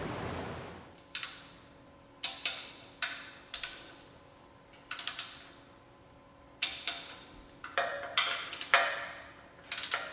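Hand ratchet clicking in short runs, over a dozen of them, each with a brief ringing tail, as the oil pan bolts are run in on the engine.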